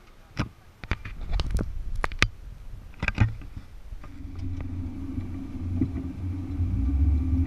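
A few sharp clicks and knocks, then a car's engine and road noise heard from inside the cabin: a steady low hum that comes in about four seconds in and grows louder as the car drives.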